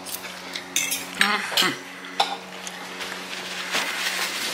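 A metal fork clinking and scraping against a ceramic dinner plate several times in the first couple of seconds, then setting down on it.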